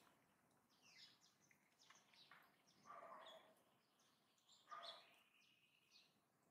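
Faint bird chirps and short calls, a few scattered through, with two louder calls about three and five seconds in, the second trailing into a short steady whistle.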